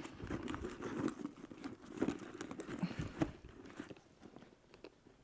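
Rustling and scraping as a big wallet is pushed into a packed Louis Vuitton Speedy 25 coated-canvas handbag, with a few sharper knocks; it dies down about four seconds in.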